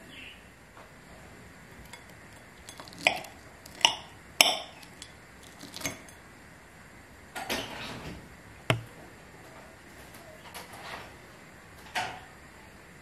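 Knife and fork clinking and scraping against a plate while cutting breaded fried zucchini, a series of short sharp clinks with one longer scrape about halfway through.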